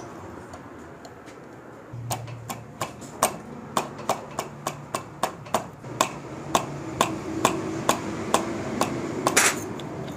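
Sharp metallic clicks, about three a second, as a Honda CG125's front fork tube is worked loose from its clamps, with a short metal scrape near the end.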